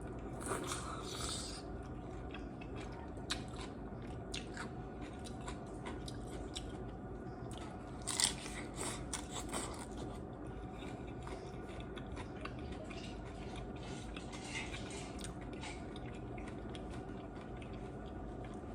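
Close-up bites and chewing of crisp fried tortilla shells from tostadas and hard tacos: scattered crackly crunches, with the loudest bite about eight seconds in, over a steady low hum.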